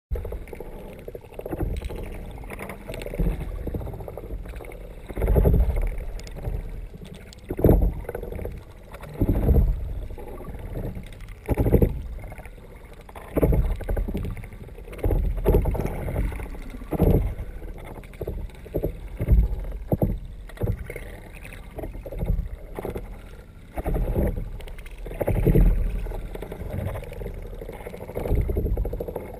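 Water rushing and sloshing against a kayak's hull and a waterproof GoPro housing, heard from under the hull. It swells in low, muffled surges about every second or two, in time with the kayak being paddled along.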